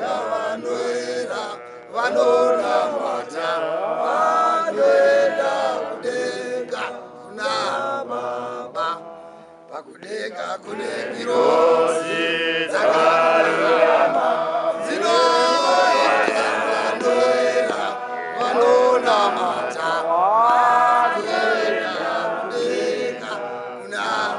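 Men chanting a worship song, their voices rising and falling with long held notes. There is a short lull about ten seconds in.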